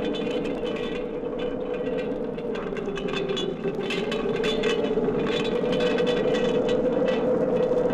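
Vintage horror sound effect: a steady, slightly wavering drone with scraping crackles running over it.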